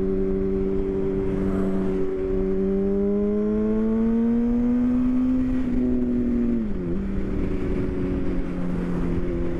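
Yamaha R1 sportbike's inline-four engine at steady highway revs, pitch climbing gradually as it accelerates, then dropping sharply about seven seconds in and settling lower as it shifts up a gear. Wind rushes steadily under the engine note.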